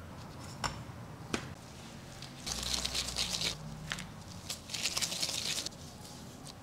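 Handling noises while baking: a few sharp clicks and two spells of crinkling, rustling noise, each about a second long.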